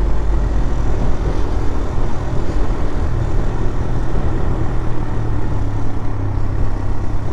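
A TVS Raider 125's single-cylinder four-stroke engine running steadily while the bike is ridden, with wind rushing over the microphone. The engine note rises a little about three seconds in.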